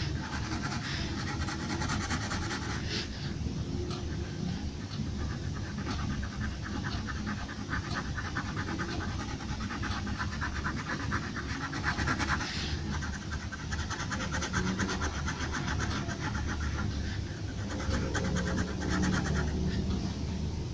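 Pencil scratching on paper in quick back-and-forth shading strokes, in runs of a few seconds with short pauses, over a steady low background rumble.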